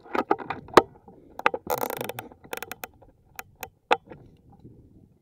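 Handling noise from an air rifle being moved and aimed: a run of sharp clicks and knocks, with a short rush of noise about two seconds in.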